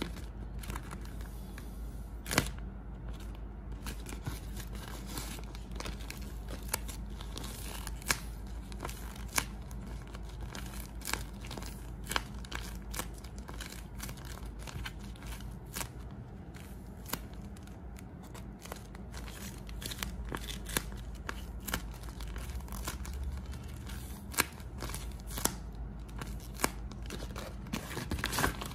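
Handmade paper squishies, glossy tape-covered paper with stuffing, being squeezed and squished in the hands, crinkling with many sharp irregular crackles.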